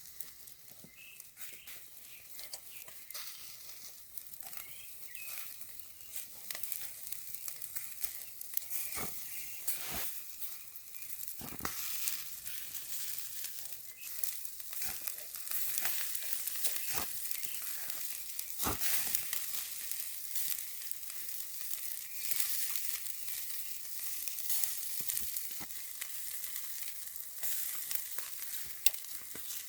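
Chicken skewers sizzling on a grill over a wood-charcoal fire: a steady high hiss with frequent sharp crackles and pops, growing louder about halfway through.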